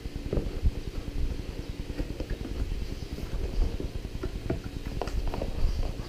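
Cardboard keyboard box being handled and opened, with scattered small knocks, taps and scrapes of the box and its packaging.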